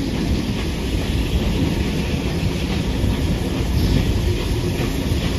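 Steam-hauled passenger train, NSW locomotives 3642 and 3526 double-heading up a steep bank, heard from a carriage window: a loud, steady rumble of the working locomotives and the carriage wheels on the rails.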